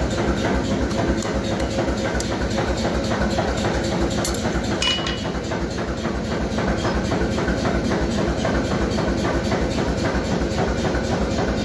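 Blacksmith's forge running with a steady roar and a fast, even low pulsing, and one light metallic click about five seconds in.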